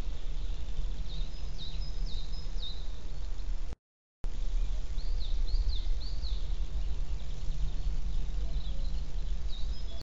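Small birds calling with short, high chirps that drop in pitch, in quick runs of several, over a steady low rumble. The sound cuts out completely for about half a second around four seconds in.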